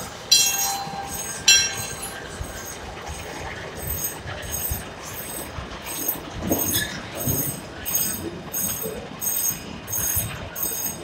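Steam locomotive Judy K pulling its open coaches slowly through a station. Its bell rings twice in the first two seconds, then an even beat of soft pulses, about two a second, comes from the train as the cars roll by.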